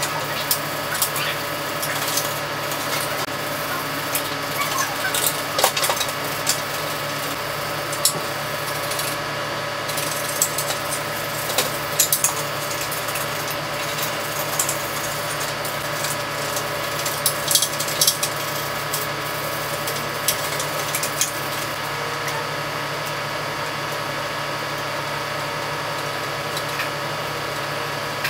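A small electric motor hums steadily at a fixed pitch. Over it come scattered scratchy scrapes and clicks as a brush scrubs rust off a wet metal model.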